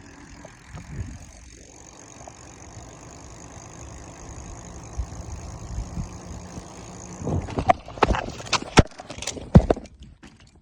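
Steady wind and riding noise on the microphone of a bicycle-mounted or handheld phone, then about seven seconds in a rapid clatter of loud knocks and bangs over roughly three seconds as the bike and rider go down in a fall.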